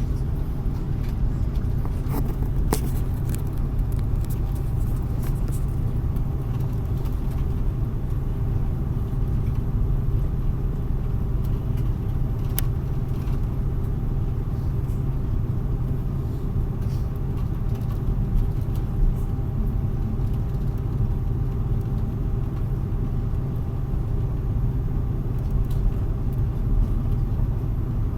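Steady low rumble inside the cabin of an Airbus A330-300 on the ground after landing, with a faint steady hum and a few light clicks.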